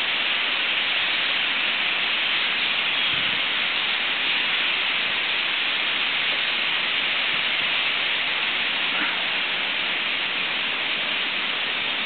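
Massed calling of a huge flock of European starlings overhead, heard as a dense, steady hiss with no single call standing out.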